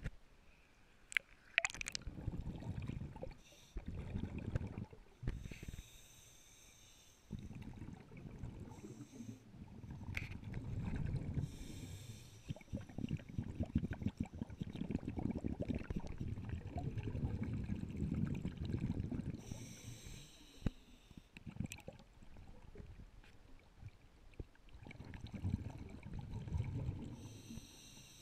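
Scuba regulator breathing heard underwater: a short hissing inhalation about every seven seconds, each followed by several seconds of rumbling exhaust bubbles. A few sharp clicks sound near the start.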